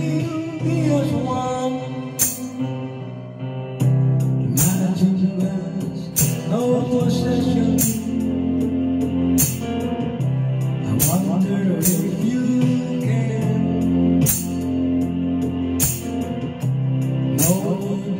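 A man singing a slow song into a microphone over a backing track, with sharp percussion strokes about once a second.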